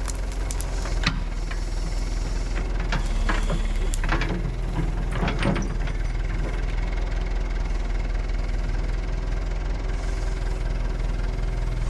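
Backhoe engine running steadily, with a few sharp metallic clanks and knocks in the first half.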